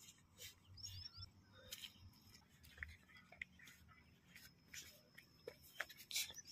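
Faint, irregular crunching footsteps on a dry dirt path.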